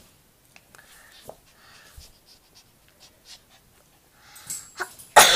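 Chihuahua puppy snuffling and shifting in a blanket-lined bed, with soft scattered clicks and faint breathy noises. About five seconds in comes a brief, loud crackling rustle.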